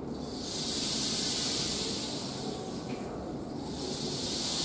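Rainstick tipped end over end twice, giving two long swells of high pattering rush as the beads fall through the tube; the second swell starts about three and a half seconds in.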